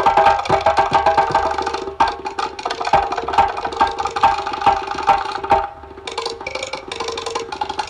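Fast percussion music of drums and sharp wooden clacks, played densely over a few held notes. It turns softer about six seconds in, then picks up again.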